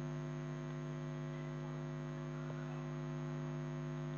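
Steady electrical mains hum, a low buzz with many even overtones that holds unchanged; one faint click about two and a half seconds in.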